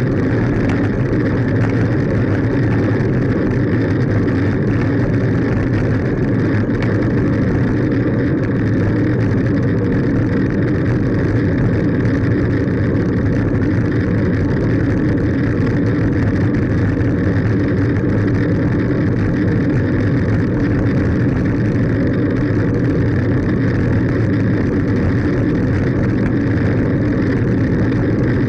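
Steady wind and road rumble on a camera mounted on a fixed-gear bicycle rolling along a paved road, unchanging throughout.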